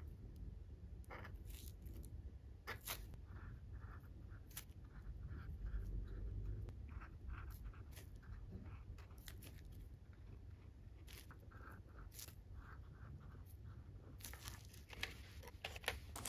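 Faint small clicks and scratches from drawing with a food pen on macaron shells and handling them on plastic wrap, with a denser patch of crinkly clicks near the end.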